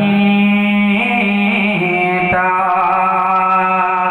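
A man singing a naat over a microphone, holding long drawn-out notes that step to a new pitch about one and two seconds in.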